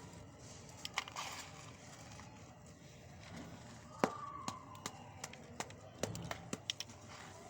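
Hard pieces of pure cement crumbling and snapping: sharp dry cracks and crunches, a few at first, then a loud snap about four seconds in followed by a quick run of cracks.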